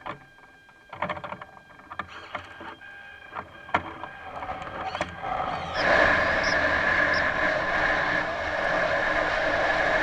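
Sound picked up by the camera on board a small unmanned glider just released from its stratospheric balloon: a thin steady whine with scattered clicks and rattles from the airframe, then from about six seconds a louder steady rushing noise as the glider falls and picks up speed.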